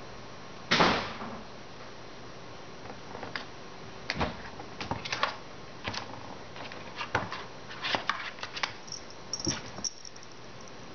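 Green plastic ball-track cat toy knocked and rattled by a playing kitten: one loud knock about a second in, then a scattered run of clicks and taps on the plastic, with a quick patter of light ticks near the end.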